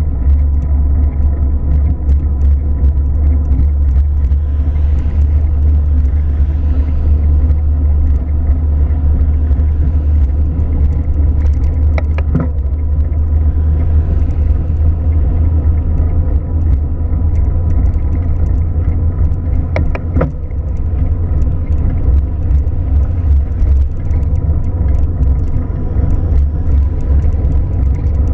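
Steady low rumble of a car, heavy in the deep bass. Twice, about a third and about two-thirds of the way through, a short higher-pitched sound cuts in briefly.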